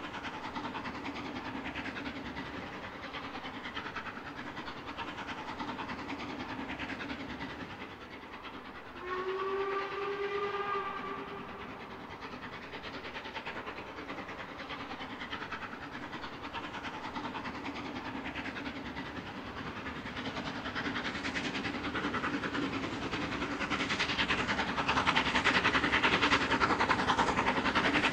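Steam locomotive Royal Scot No. 46100, a three-cylinder LMS 4-6-0, working a train, with a steady running noise. About nine seconds in its whistle sounds one held blast of about two and a half seconds. The locomotive grows steadily louder over the last third as it draws nearer.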